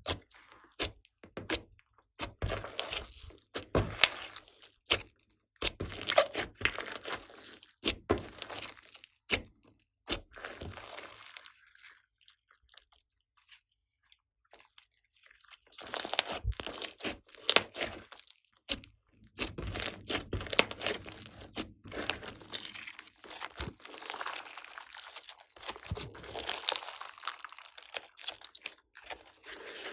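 Hands kneading and stretching slime, with crunching, crackling and popping; a pause of a few seconds near the middle.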